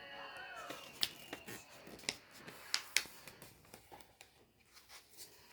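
Sheet of paper being handled and folded, with a few faint sharp crinkles and taps in the first three seconds.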